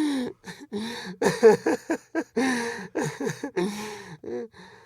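A man's nervous, uncontrollable laughter in short, rapid voiced bursts, the pitch falling in many of them, easing off near the end.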